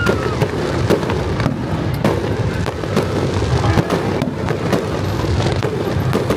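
Fireworks display going off: a dense, unbroken run of bangs and crackles in quick succession, several a second.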